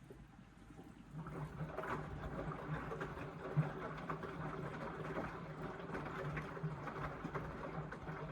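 Indesit washing machine starting its wash tumble about a second in: the drum motor hums steadily as the wet load and water slosh and knock around in the drum during an Express 15 wash cycle.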